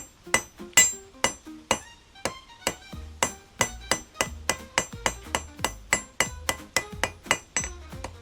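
Hand hammer striking hot steel on an anvil, each blow ringing, in a steady rhythm of about three blows a second that turns quicker and lighter after about three seconds. Background music with a low bass line comes in underneath at about the same time.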